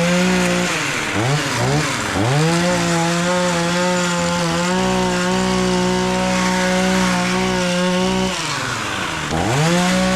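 Two-stroke chainsaw engine revved in two quick blips, then held at high revs for about six seconds before dropping back. It is revved up again near the end.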